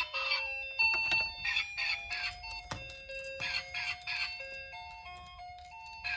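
A tinkly electronic tune: a simple stepping melody of held notes under quick, evenly repeated bell-like beeps. It thins out about halfway through and comes back fuller near the end.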